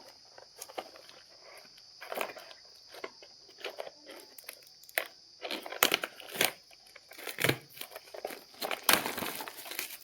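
Packaging of a wireless microphone set being opened by hand: irregular crinkling and rustling with scattered sharp clicks, over a faint steady high hiss.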